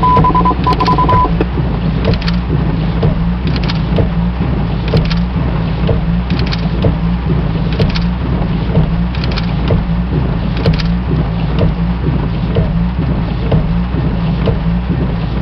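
Steady, loud aircraft cockpit drone with faint regular ticks about every three-quarters of a second. A high beep tone sounds a few times in the first second.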